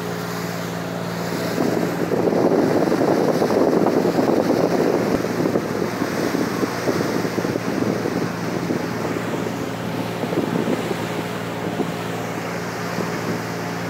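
A riverboat's engine drones steadily under the rush of wind on the microphone and water along the hull as the boat cruises. The wind noise swells for a few seconds after the start, then eases.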